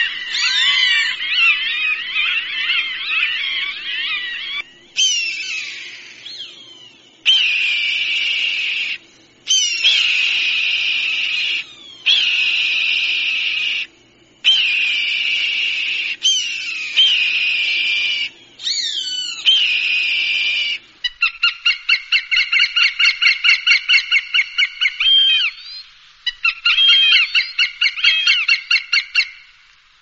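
Recorded hawk calls played as a bird deterrent: a series of piercing, high-pitched screams that each start with a quick sweep, hold and then cut off abruptly, spliced one after another. From about two-thirds of the way through they give way to a fast chattering run of short repeated calls, a few a second.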